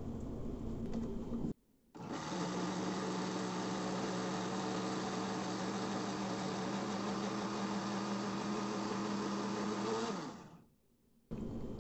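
Black+Decker countertop blender motor running steadily, puréeing cooked cape gooseberries in syrup, then winding down near the end as it is switched off.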